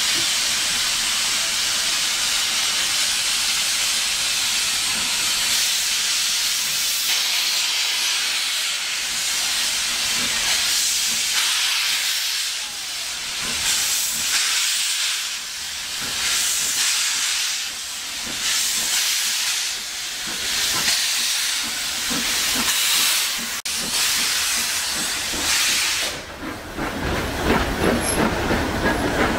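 Beyer-Peacock 2-4-0T steam tank locomotive no.11 "Maitland" hissing steam at low speed, with steam blowing beside its wheels. From about ten seconds in the hiss surges and eases in slow pulses. Near the end the hiss drops away and the passing coaches rumble and click on the rails.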